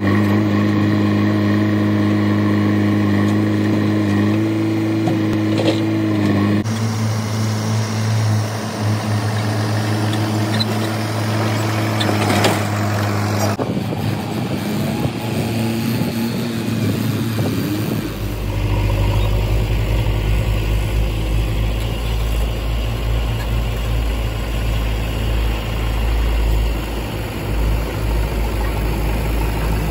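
Diesel engines of a Mahindra 575 DI tractor and a JCB 3DX backhoe loader running steadily. The sound changes abruptly about 7, 14 and 18 seconds in, and a deep low rumble takes over for the last part.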